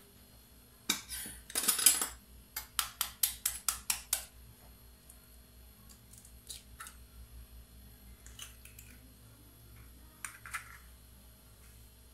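Eggshell tapped and cracked over a ceramic mug: two louder knocks, then a quick run of about ten light taps, followed by a few scattered small clicks of shell and crockery.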